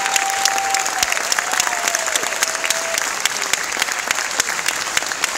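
Audience applauding with dense, steady clapping. A long, held high call from the crowd rises over the clapping in the first half.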